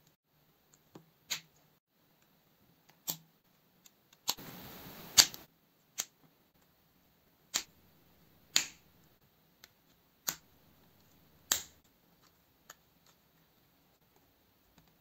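Plastic building bricks clicking together as ball-joint pins are pressed into their sockets: sharp single clicks every second or two. A short scratchy rustle of handling about four seconds in ends in the loudest click.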